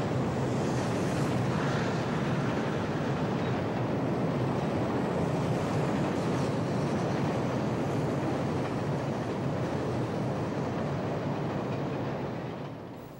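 Steam excursion train's passenger cars crossing a steel truss bridge: a steady noise of wheels on rails that fades away near the end.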